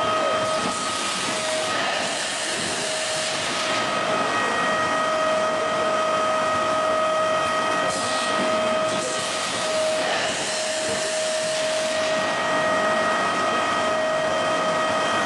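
Automatic ice lolly production machine running with a steady whine and a constant hiss, the hissing swelling for a second or so several times.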